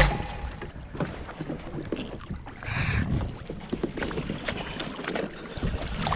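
Wind on the camera microphone, with water splashing and irregular knocks against a plastic kayak as a gaffed yellowfin tuna is hauled out of the water and aboard; the loudest splash comes a little under halfway through.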